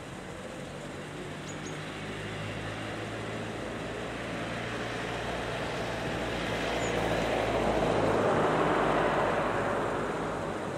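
A motor vehicle passing: a low engine hum and rushing noise growing louder to a peak about eight seconds in, then fading away.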